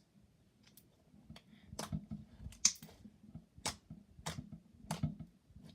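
Thick clear slime being worked by hand, giving off a series of sharp clicking pops, about six in the space of a few seconds.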